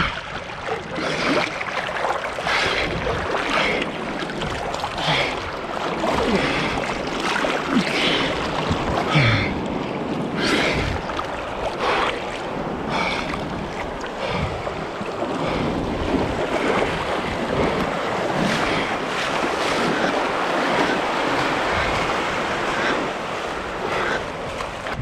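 Choppy seawater splashing and sloshing right at the microphone as a bodyboard is pushed through swell, with irregular splashes throughout and wind buffeting the microphone.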